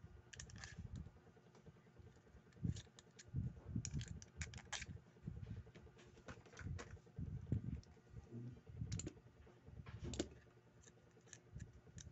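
Irregular light clicks and taps of a metal spinning reel's parts being handled during assembly, mixed with soft low knocks.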